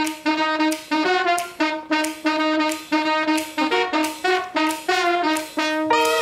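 Swing jazz instrumental intro: a band plays short, detached phrases of melody notes with gaps between, without bass or drums. A held note comes in near the end.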